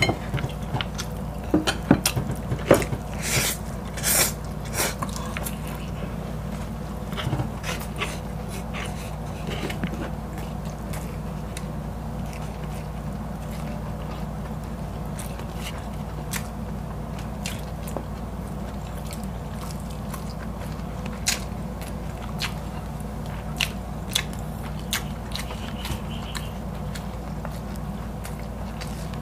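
Close-miked eating: bites into breaded fried chicken fillet and siomai, and chewing, heard as short sharp clicks that come thick in the first several seconds and more sparsely after. A steady low hum runs underneath.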